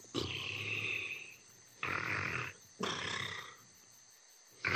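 Cartoon hippo snoring while asleep in a hammock: three rough snores in quick succession, each under a second long, followed by a pause.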